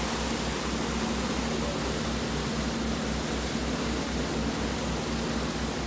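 Steady rush of wind and water on the deck of a moving river cruise boat, under a low, even engine throb of about five beats a second and a steady hum.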